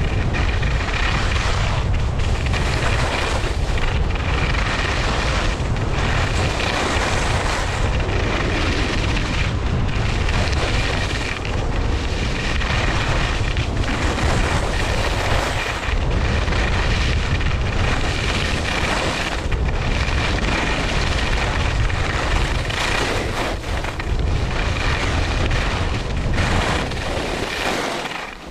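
Wind buffeting the microphone of a helmet-mounted camera on a fast ski run, a heavy rumble, over the hiss and scrape of skis on hard-packed piste snow that surges and eases every second or two with the turns.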